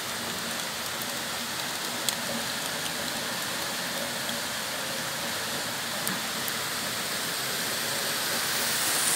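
Heavy rain mixed with hail pouring down, a steady hiss with a few sharp ticks, getting a little louder near the end.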